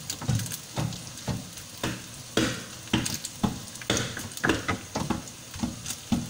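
Ground pork and diced ham sizzling in a nonstick frying pan while a wooden spatula stirs and scrapes through it in repeated strokes, about two a second.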